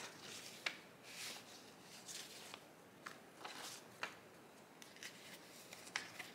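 Faint rustling of old paper as a folded sheet is slid out of a paper envelope and unfolded, in a string of short, scratchy rustles.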